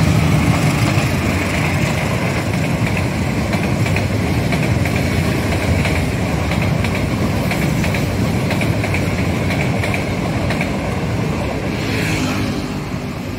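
Passenger train passing at speed: steady rumble of wheels on rails with repeated clicks, easing off slightly near the end.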